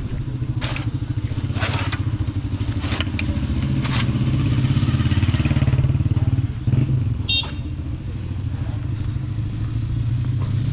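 A motorcycle engine running close by, a steady low rumble that swells past the middle and drops off about two-thirds of the way in. Footsteps crunch on packed snow and ice about once a second over the first few seconds, and a brief high squeak comes near the end.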